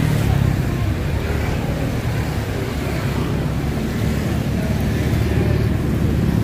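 Steady low rumble of street traffic, with no single vehicle standing out.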